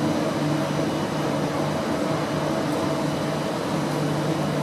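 Steady mechanical hum with a constant low drone and fainter higher steady tones, the background of an underground metro station.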